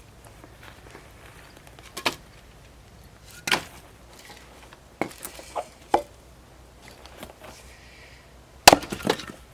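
Firewood being split by hand: several sharp, irregularly spaced strikes into wood, the loudest two close together near the end.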